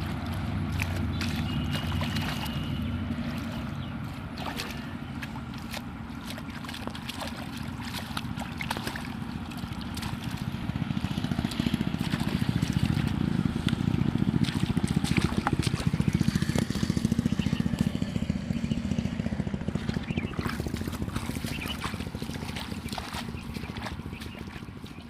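Water sloshing and gurgling, with scattered small splashes. It grows louder about halfway through and fades toward the end.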